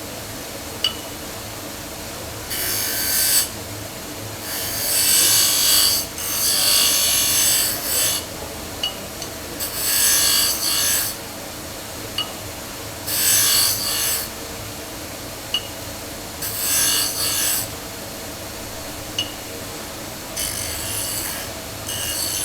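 A metal glockenspiel bar being fine-tuned by abrading its underside, in about eight rasping bursts of roughly a second each. Between bursts the bar is struck briefly with a short high ping at the same pitch each time, as its tuning is checked. A steady low hum runs underneath.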